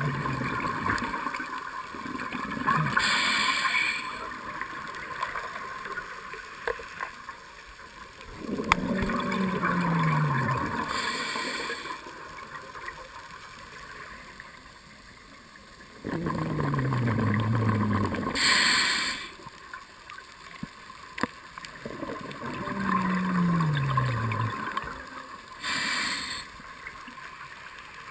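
Scuba diver breathing through a regulator, four breaths about seven to eight seconds apart. Each is a bubbling exhalation with a falling low tone, followed by a short hiss of inhalation through the demand valve.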